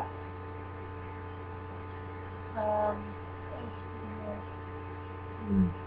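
Steady electrical mains hum with a stack of overtones running under the recording. A woman makes a short wordless 'uh' about two and a half seconds in and a low falling 'hmm' near the end.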